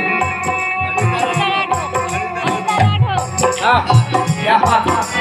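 Live Indian ghazal music. Held steady melody tones are accompanied by a regular hand-drum beat and a shaker rattling. In the second half a gliding, ornamented melodic line comes in over them.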